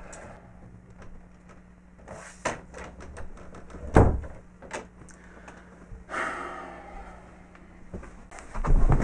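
Wooden bedroom door being handled and pushed shut: a sharp knock about two and a half seconds in and a louder thud about four seconds in, with rustling around them.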